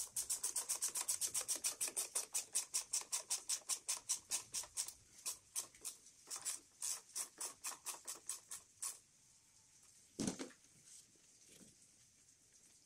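Ratchet clicking quickly and evenly, about six clicks a second, as a hose clamp on a silicone intake hose is tightened. The clicking breaks into shorter runs and stops about three quarters of the way through. A single dull knock comes about a second later.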